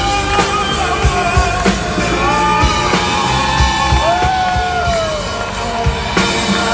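Live band music with a male vocalist singing long sliding runs over a steady drum beat and backing vocals, heard through the hall.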